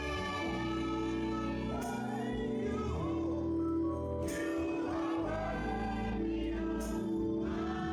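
Gospel worship music: voices singing over an instrumental accompaniment that holds long, sustained chords with a steady bass line.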